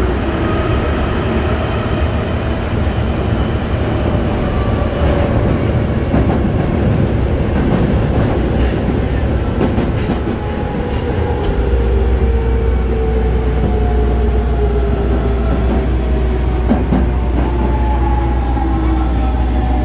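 Osaka Metro 22 series subway train running, heard from inside the car: a steady rumble of wheels on rail with a few rail-joint clicks. A motor whine falls in pitch through the second half as the train slows, and a deeper hum comes in about halfway through.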